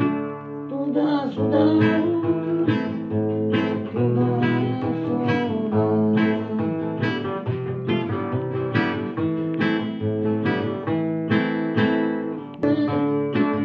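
Acoustic guitar strummed chords in a steady rhythm, each stroke sharp and ringing on into the next.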